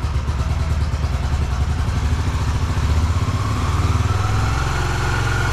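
Yamaha YBR125's air-cooled single-cylinder four-stroke engine idling fast on the choke just after a cold start, warming up. The revs creep up about three to four seconds in.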